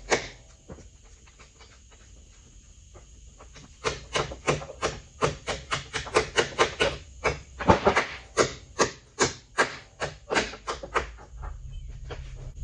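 A run of sharp knocks, about three a second, starting about four seconds in and lasting some seven seconds, loudest in the middle. A low steady hum comes in near the end.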